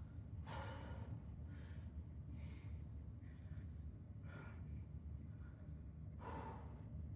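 A man breathing hard through an exercise set, with heavy breaths in and out at irregular spacing, the strongest about half a second in and near the end. A steady low hum runs underneath.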